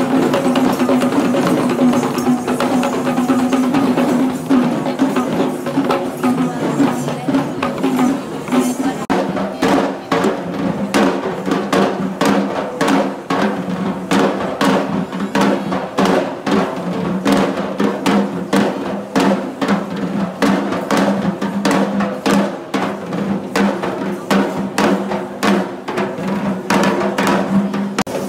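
Sri Lankan traditional procession music: drums beaten in rapid strokes under held, steady pipe-like tones. The drumming becomes sharper and denser about nine seconds in, when the held tones change pitch.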